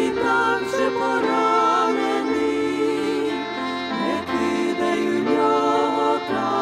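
A women's vocal trio singing a Ukrainian hymn in harmony, the voices wavering with vibrato, over sustained instrumental accompaniment.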